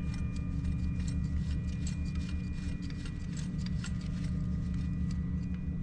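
Light clicks and scrapes of a compression tester's hose fitting being handled and threaded into a spark plug hole, over a steady background hum.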